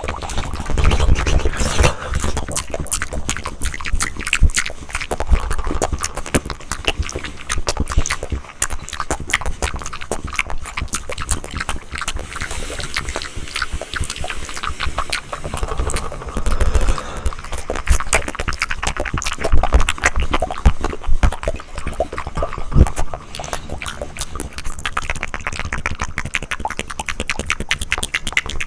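Close-miked ASMR mouth sounds: a dense, continuous stream of wet mouth clicks and smacks.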